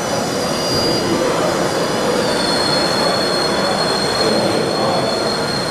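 High, steady whine of a radio-controlled scale crawler's electric motor and gearbox as the truck climbs a dirt slope. The pitch steps up about two seconds in and then holds, over a steady background din.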